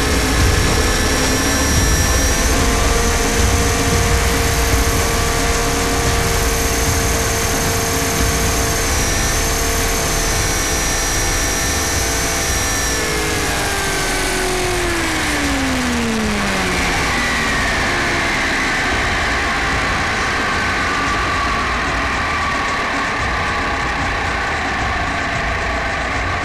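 Onboard sound of a 500-size RC UH-60 Black Hawk scale helicopter: a steady, high mechanical whine from its motor and gears over a low rumble. About halfway through, after it has settled on the sand, the whine falls steadily in pitch as the rotor spools down, leaving a hiss with a fainter, slowly sinking tone.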